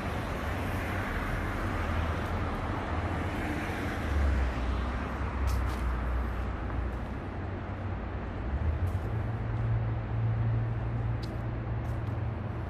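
Road traffic on a city street: vehicles running and passing, a steady low rumble under a wash of noise.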